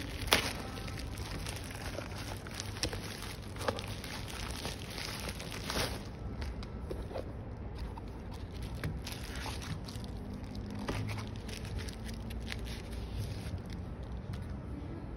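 Plastic bubble-wrap packaging and a cardboard box being handled: intermittent crinkling, rustling and small clicks, busiest in the first six seconds and sparser after.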